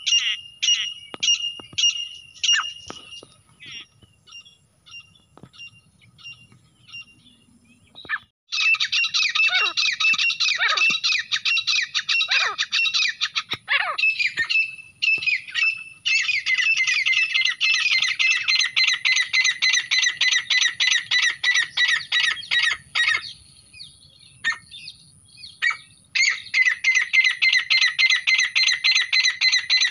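Grey francolins calling, a hunting lure call: a train of repeated high notes fades out over the first few seconds, then from about eight seconds in come long runs of fast, loud repeated calls, broken by a pause of a few seconds near the end.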